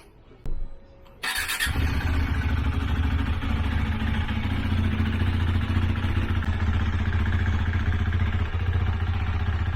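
KTM Duke 390's single-cylinder engine through its stock exhaust, started with a short crank about a second in, then idling steadily with a tinny exhaust note.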